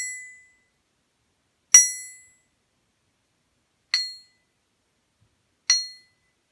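True Temper Kelly Perfect axe head, balanced on a stick, tapped with a small hammer: the ring of one tap just before fades out, then three more taps follow about two seconds apart. Each rings with a clear high tone that dies away in about half a second, a pretty decent sound to the tester's ear.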